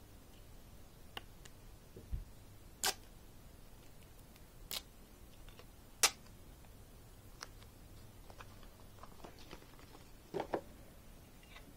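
Scattered sharp clicks and taps as a plastic football visor and its packaging are handled: about seven separate clicks, the sharpest about six seconds in, and a quick double click near the end.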